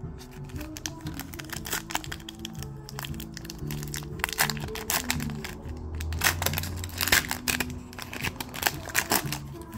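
Foil trading-card pack wrapper crinkling and crackling as it is torn open and handled, with many sharp crackles that come thickest in the second half. Background music with steady held low notes plays underneath.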